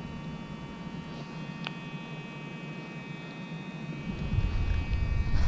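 Faint steady hum made of several high thin tones, with one short sharp click about a second and a half in and a low rumble building near the end.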